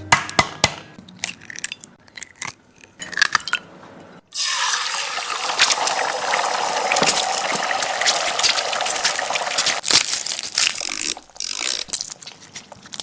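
Food sizzling and crackling in hot oil in a wok. It starts suddenly about four seconds in, after a few clicks and knocks, and runs steadily for about six seconds before dying down.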